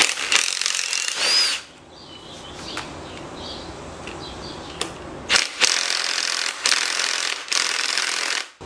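Cordless impact driver hammering on the bolts of a BMW E30 limited-slip differential's clutch-pack carrier to loosen them. It runs in one burst of about a second and a half with a rising motor whine, then after a pause gives four short bursts in quick succession near the end.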